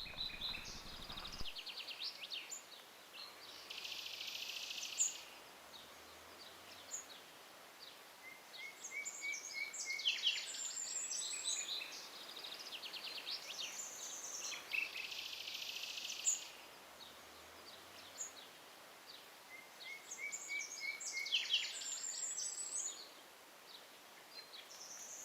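Songbirds singing outdoors: high chirps and fast trills in repeated phrases every few seconds, over a faint steady background hiss.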